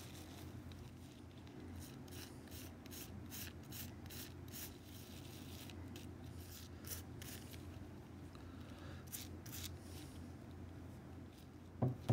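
Small wire brush scrubbing a brass adjusting nut from a Shelton hand plane, short scratchy strokes in uneven bursts, cleaning off rust-remover residue. A sharp knock near the end.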